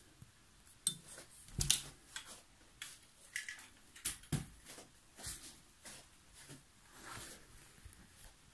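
A string of light, irregular clicks and knocks, about two a second, from someone moving about and handling things at a close range; the loudest knock comes about two seconds in.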